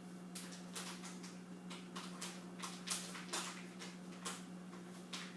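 Spatula stirring soap batter in a container, a series of short irregular scrapes and knocks against the container about twice a second, over a steady low hum.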